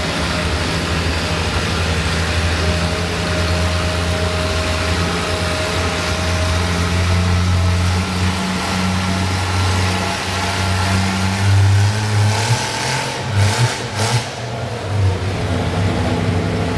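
Engine of a vintage Oliver row-crop tractor running steadily under load as it drags a pulling sled. About three quarters of the way through its note shifts and turns uneven, with two sharp cracks.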